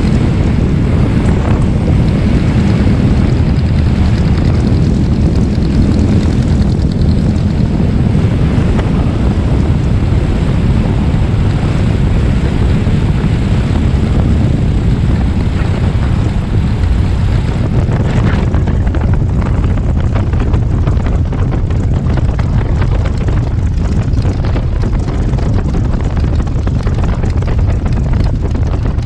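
Luscombe light plane's engine and propeller running through a landing, buried in heavy wind rush on an outside-mounted camera. About eighteen seconds in the higher hiss fades as the plane rolls along the runway.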